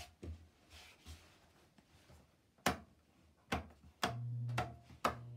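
Wall switches clicking several times in a row, sharp single clicks about a second apart. About four seconds in, a steady electrical hum starts as something switched on begins to run.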